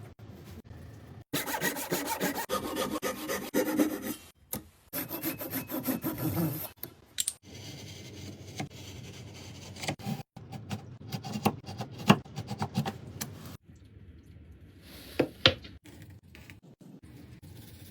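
Hand saw cutting wood in quick, rapid strokes, in several separate spells, with a few sharp knocks on wood later on.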